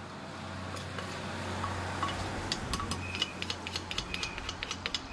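A stainless spoon and wooden pestle clinking and knocking against a clay mortar as som tum is tossed and mixed. The sound is a quick run of light clicks and clinks through the second half, over a low steady hum.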